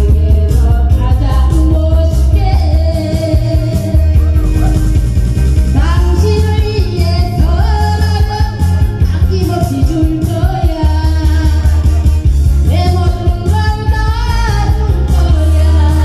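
A voice singing over loud backing music with a heavy bass line and a steady beat.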